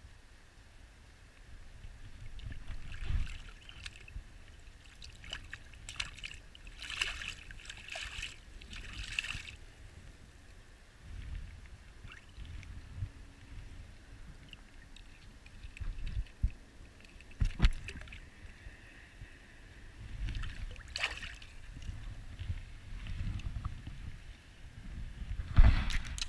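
Water sloshing and splashing in irregular bursts, with a low wind rumble on the microphone.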